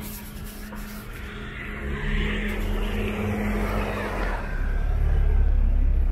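A car driving past on the street: engine rumble and tyre noise that grow louder over the last few seconds.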